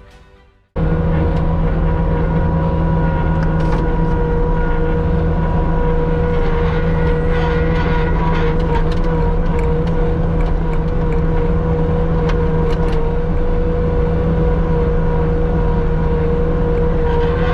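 Steady motor hum: a low rumble with a constant whining tone that holds level in pitch and loudness. It cuts in abruptly just under a second in.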